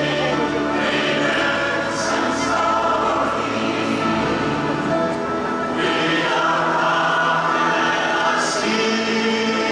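Large mixed choir of men and women singing a hymn in sustained chords, with sung consonants hissing together now and then.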